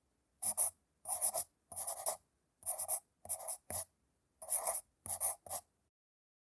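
Pencil drawing on paper: a run of short, scratchy strokes, one or two a second, that stops a little before the end.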